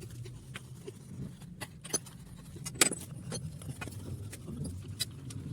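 Scattered light metallic clicks and clinks, one sharper click near the middle, over a low steady hum.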